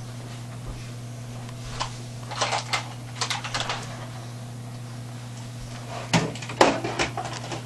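Hamsters scuffling inside a plastic cage: short clattering and scratchy scrabbling in two bursts, a couple of seconds in and again about six seconds in, over a steady low electrical hum.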